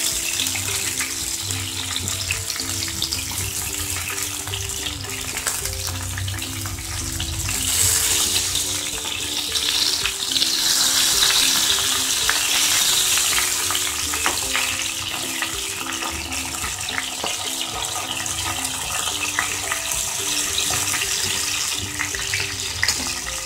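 Stuffed parwal (pointed gourds) sizzling as they shallow-fry in hot oil in a pan, the sizzle swelling a few times as pieces are turned, with light clicks of metal tongs. Soft background music with a simple melody plays underneath.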